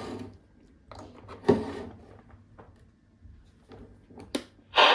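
Handling noise from a handheld CB radio: a few separate clicks and knocks from its switches and casing, the loudest about a second and a half in and a quick cluster near the end.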